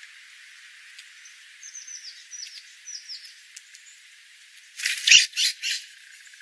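Small ground-feeding songbirds chirping: several short, high, falling chirps in quick little groups, then a few loud wing flaps as a bird flutters up off scattered birdseed about five seconds in.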